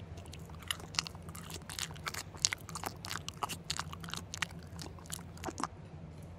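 Close-up chewing of a mouthful of shrimp sushi: a quick run of wet mouth clicks and smacks that stops about a second before the end, over a faint steady low hum.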